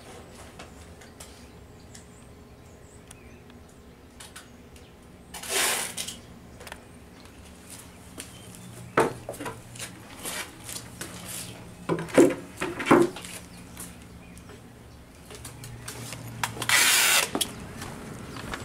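Handling noise: a rush of noise about five seconds in, a cluster of sharp knocks and clatter, then another longer rush of noise near the end.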